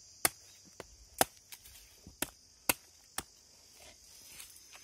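A curved billhook knife chopping into a green palmyra palm-leaf stalk: about five sharp cuts, roughly half a second to a second apart, stopping after about three seconds.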